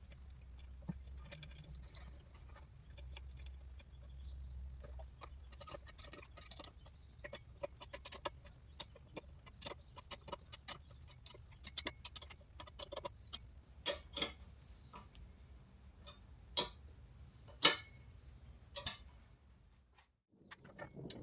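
Irregular light clicks, taps and knocks of hard parts being handled, a few sharper ones in the second half, over a faint low hum; it drops out abruptly near the end.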